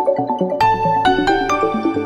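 A Huawei MatePad 11.5 ringtone playing: a fast electronic melody of short stepping synth notes over a low bass, with bright bell-like notes struck about half a second, one second and one and a half seconds in.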